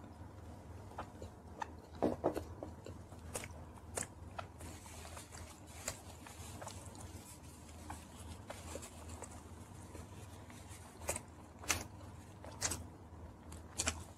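Close-miked chewing of fried chicken: moist mouth clicks and small crunches. They come in a cluster about two seconds in, are sparse through the middle, and come thicker again near the end.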